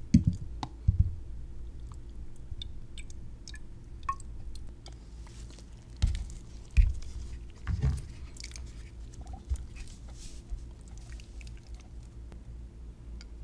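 Handling noise from a glass graduated cylinder partly filled with water: dull knocks at the start and again about six to eight seconds in as it is tilted and moved on the bench, with light taps and clicks between, over a low steady hum.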